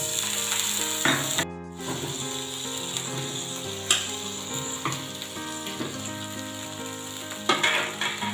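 Butter sizzling in a hot non-stick frying pan as boiled sweet corn and chopped vegetables and paneer are tipped in. A couple of sharp taps about four and five seconds in, and the sizzle drops out briefly about a second and a half in.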